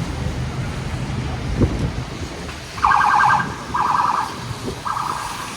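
City street traffic noise, then three short car horn honks from about three seconds in, the first the longest.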